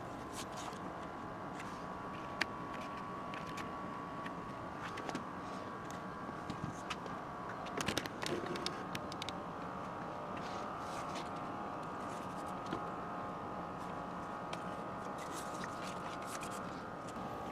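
Steady background hum with a faint whine, broken by scattered light clicks and scrapes as the chainsaw and its packaging are handled, a short cluster of them about halfway through.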